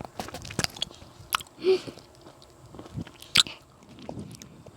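Close-miked biting and chewing of mandarin tangerine segments, with several sharp wet clicks and smacks from the mouth.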